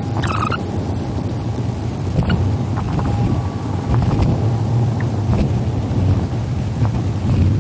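Steady low rumble with a faint click about two seconds in.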